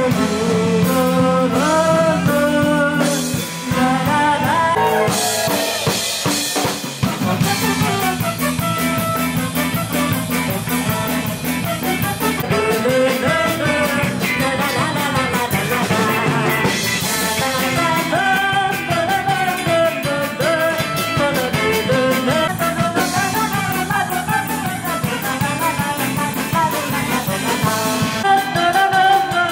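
Live jazz band playing loudly: drum kit, trumpet, alto saxophone and guitar, with a woman singing into a microphone over a PA.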